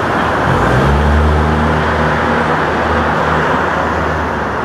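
A motor vehicle's engine drones low and steady, coming up about half a second in and fading out after about three seconds, over continuous street traffic noise.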